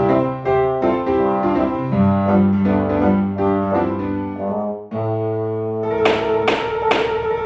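Instrumental background music: piano-like notes over held low brass-like notes, with three sharp accented strokes about a second from the end.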